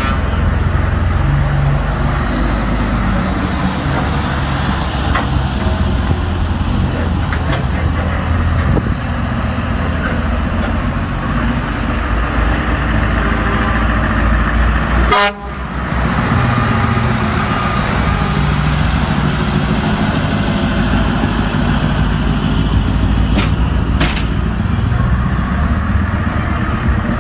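Diesel engines of heavy show trucks, Scania tractor units among them, running as they drive slowly past one after another, with horn toots. About halfway through, the sound briefly drops out.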